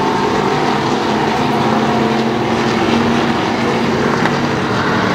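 IMCA stock car engines racing, several running at once in a loud, steady drone with engine tones layered over one another.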